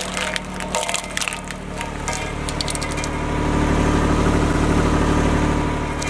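Steel drum of a road roller cracking and crunching coconut shells: many sharp cracks over the first two seconds. Underneath, the roller's engine runs steadily and grows louder through the middle.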